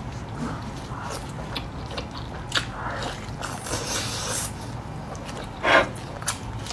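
Close-miked eating of braised lamb leg meat: biting, wet chewing and lip-smacking, with a louder wet smack a little before the end.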